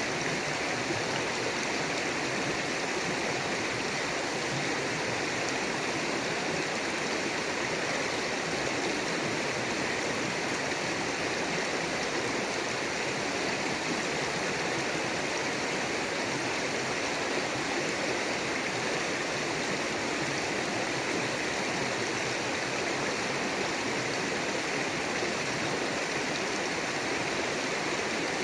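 River water rushing and splashing over rocks in a steady, unbroken flow.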